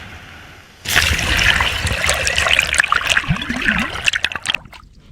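Water splashing and trickling, starting suddenly about a second in with many sharp crackling drips and dying down near the end.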